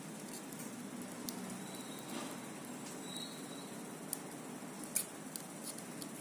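Soldering iron melting solder onto a battery terminal: sparse, faint crackling ticks of flux and solder, over a steady low hum.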